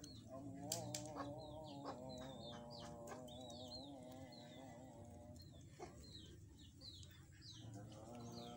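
Young chick peeping, a string of short high cheeps that fall in pitch, coming in quick clusters, over a faint steady pitched tone with a slight waver.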